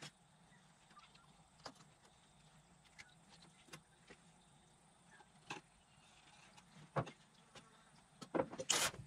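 Filleting knife working on a wet stainless steel bench while skinning a whiting fillet: faint scattered clicks and scrapes of the blade on the steel, a sharper knock about seven seconds in, and a run of louder scrapes and knocks near the end.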